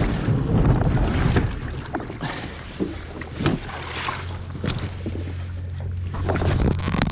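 Wind buffeting the microphone on a small skiff on the water, with scattered knocks and clicks of gear being handled. A steady low hum comes in about halfway through.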